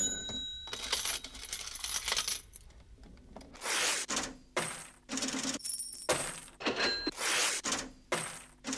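Metallic jingling and clinking in a series of separate bursts, each under a second long, with bright ringing overtones. The bursts come about once a second from a little past the middle, after a softer, lighter rattle at the start.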